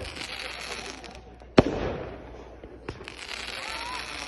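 Fireworks: rockets hissing as they climb, with one sharp bang about a second and a half in.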